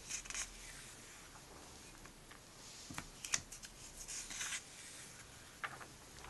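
Pages of a comic book being turned by hand: paper rustling and flapping a few times, with some sharp clicks.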